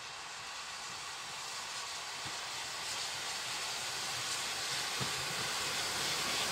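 Steam tank locomotive approaching along the track, its steam hiss and running noise growing steadily louder, with a few faint knocks.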